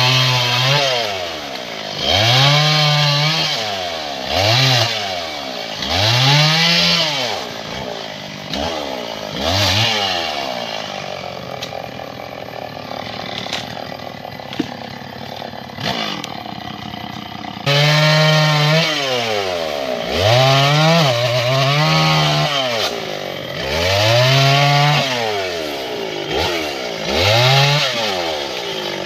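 Stihl 070 two-stroke chainsaw revved up and down again and again while cutting through mahogany limbs, the engine pitch rising and falling every second or two. For several seconds in the middle it runs at a steadier, lower pitch, then the revving picks up again abruptly.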